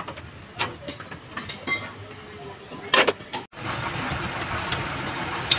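Metal hand tools and parts clinking and knocking on a truck's drum brake and hub assembly, with one louder clank about three seconds in. After a brief break, a steady rushing background noise takes over.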